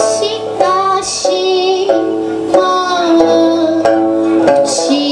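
Okinawan sanshin plucking a slow melody over sustained electronic keyboard chords, with a new plucked note about every second.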